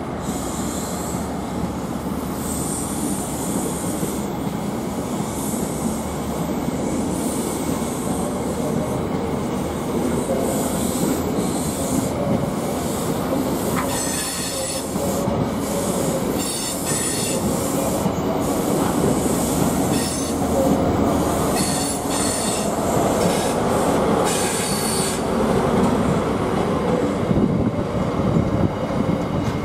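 High Speed Train (InterCity 125) rolling past over pointwork with a steady rumble of wheels on rail. Its wheels squeal in several high-pitched bursts through the middle of the passage.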